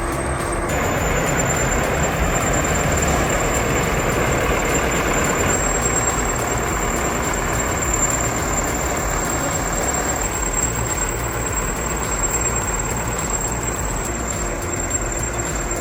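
Heavy earthmoving machine running steadily, a dense, even engine noise with no clear rhythm.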